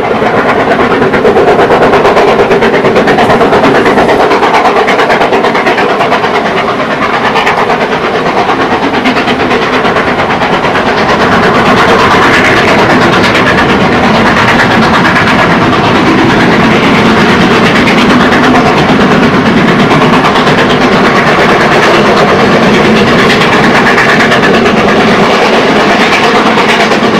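Two New Zealand Railways steam locomotives, Ka class 942 and Ja class 1271, double-heading a train and working at full power on the climb of the Raurimu Spiral. Their exhaust beats run together in a loud, steady, continuous stream.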